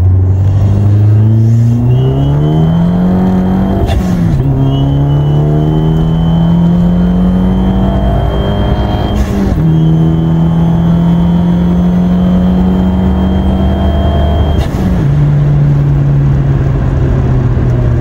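Fiat 500's 1.4-litre turbocharged four-cylinder engine at wide-open throttle, heard from inside the cabin: the engine note climbs through the revs, drops sharply at upshifts about 4 s, 9.5 s and 15 s in, then climbs again. A high steady turbo whistle rides over it through the middle of the pull and breaks at each shift.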